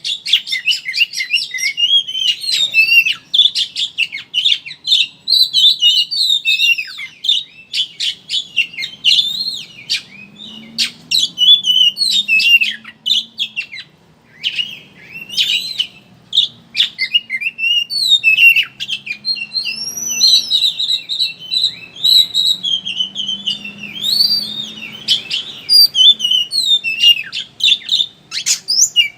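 Oriental magpie-robin (kacer) singing a fast, continuous twittering song of rapid chirps and whistled slurs, the rapid chattering style called ngeriwik, with one brief pause about fourteen seconds in.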